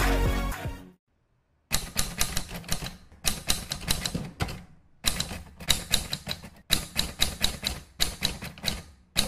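Typewriter sound effect: keys clacking in quick runs of strokes, with short pauses between the runs. A music clip fades out in the first second before it.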